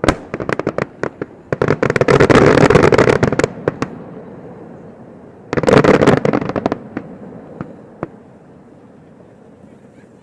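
Aerial fireworks going off: a run of sharp pops, then two dense stretches of rapid crackling bangs, about two and five and a half seconds in. It thins to a few scattered pops near the end.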